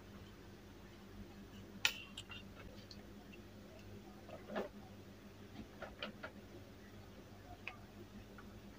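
Scattered small clicks and light taps of hands handling a remote control's bare circuit board and fitting its coiled wire battery spring contacts, one sharp click about two seconds in louder than the rest, over a faint steady hum.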